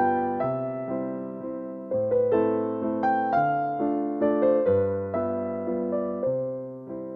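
Background music: a gentle piano or electric-piano piece, notes and chords struck and fading, changing roughly every second.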